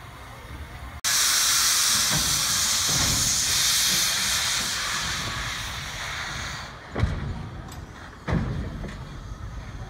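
Small Baldwin steam switcher locomotive blowing steam from its open cylinder cocks: a loud hiss that starts suddenly about a second in and fades over several seconds. Then come two sharp chuffs about a second and a half apart.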